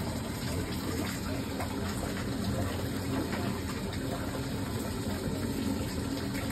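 Steady low rushing noise with no break, with a few faint clicks over it.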